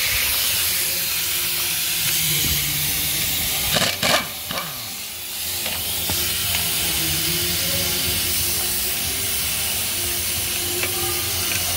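Steady hiss of workshop noise with a faint low hum, broken about four seconds in by a short clatter of metal strikes as tools and parts are handled on a stripped truck diesel engine.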